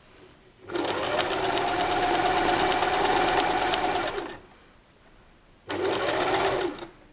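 Electric sewing machine stitching a straight seam through layered fabric. It makes one steady run of about three and a half seconds starting under a second in, then a shorter burst of about a second near the end.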